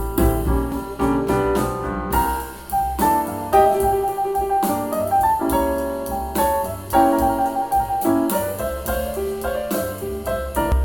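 Piano-led jazz-style music: a running line of piano notes over a steady low bass.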